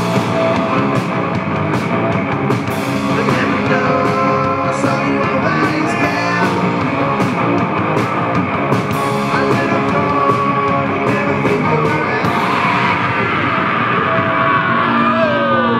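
Rock band playing an instrumental passage on electric guitars, electric bass and drum kit, with cymbals struck steadily throughout.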